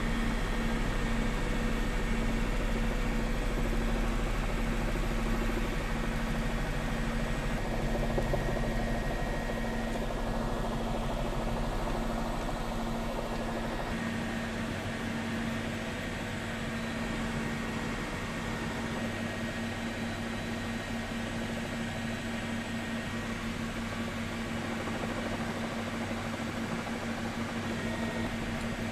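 Steady drone of a news helicopter's engine and rotor heard from on board, with a constant hum over a wash of noise. The deep rumble underneath drops away about halfway through.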